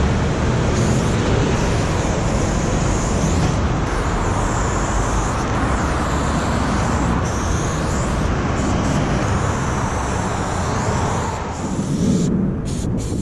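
Steady noise of highway traffic, with an aerosol spray can hissing as paint goes onto the concrete.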